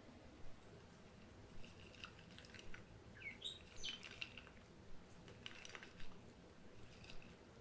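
Faint scrapes, clicks and wet squelches of a spatula folding chopped walnuts into thick brownie batter in a bowl, with a few short high chirps or squeaks that fall in pitch.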